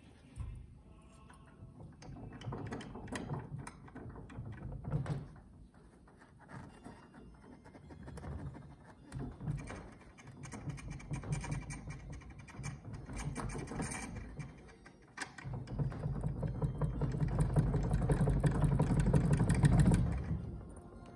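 GlaStar nose gear being shaken by hand, rattling and clunking rapidly in three spells, the last the longest and loudest. The knocking comes from play in the nose gear.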